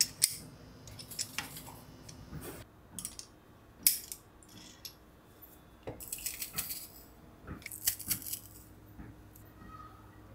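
Kitchenware being handled: a series of sharp clinks and clatters at irregular intervals, the loudest about four seconds in.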